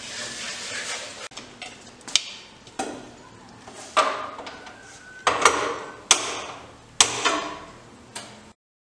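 About eight sharp clinks and knocks of kitchen utensils and dishes, spaced irregularly, some with a short ring after them. The sound cuts off abruptly shortly before the end.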